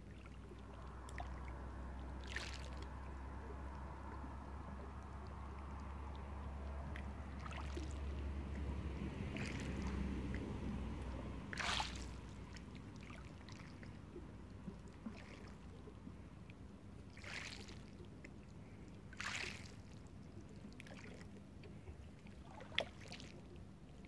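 Small waves lapping and splashing over stones, with a short splash every few seconds. In the first half a passing car's low rumble swells and fades away about eleven seconds in.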